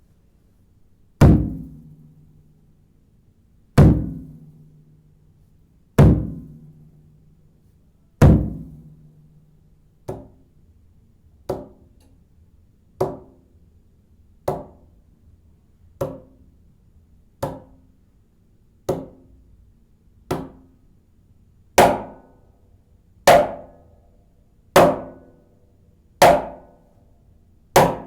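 Clapbox Cajembe (a 4-in-1 cajon with djembe and darbuka sides) struck by hand one stroke at a time to show its sound. The first four are deep bass tones about two seconds apart that ring on; after that come shorter, lighter strokes about every second and a half, sharper and louder over the last few.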